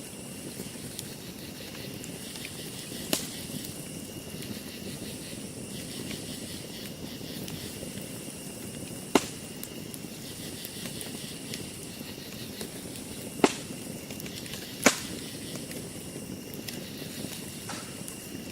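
Wood campfire burning with a steady hiss and four sharp pops of the burning wood.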